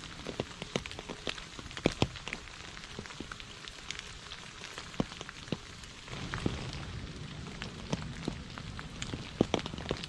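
Steady rain falling on puddles and wet fallen leaves, with many separate drops landing as short sharp taps. A low rumble joins the rain about six seconds in.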